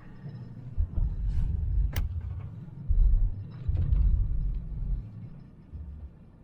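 Low rumbling in uneven surges from a car driving, heard inside the cabin, with a sharp click about two seconds in and a few lighter clicks near four seconds.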